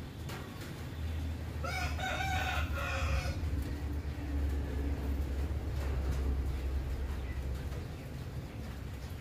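A rooster crows once, about two seconds in, over a low steady rumble.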